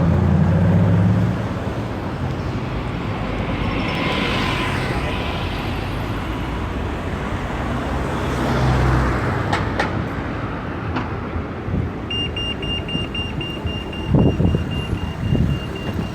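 Street traffic noise: a steady rumble of vehicles passing. About twelve seconds in, a high-pitched beeper starts repeating steadily, like a vehicle reversing alarm.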